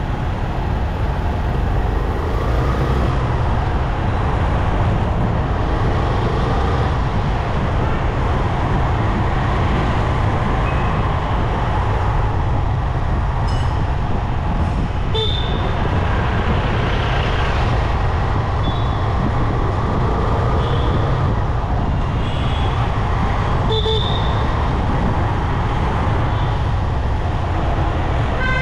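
Steady wind rush and road noise from riding a motorcycle through city traffic. A few short horn toots sound between about 13 and 24 seconds in.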